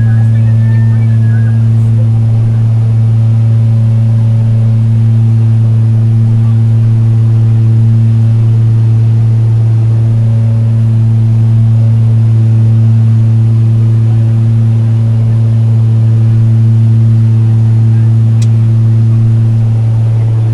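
Steady, loud propeller-aircraft engine drone heard inside the cabin in flight, a low hum with an even stack of overtones that does not change.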